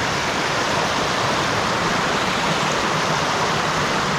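Waterfall and fast-flowing stream water rushing steadily at close range.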